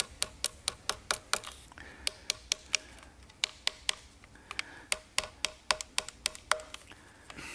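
Small screwdriver handle knocking a part into place with quick, light taps, about three to four a second, in several runs with short pauses between them.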